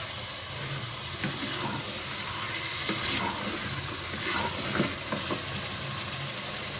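Raw chicken pieces sizzling in a pot of hot tomato and ginger-garlic masala while a wooden spatula stirs them, with scattered scrapes and knocks of the spatula against the pot.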